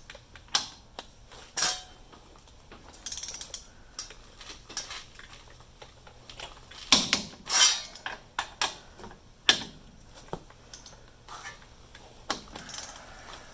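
A torque wrench ratcheting as it tightens the high steer arm's lock nuts, with irregular sharp metallic clicks and knocks, loudest in a cluster about halfway through.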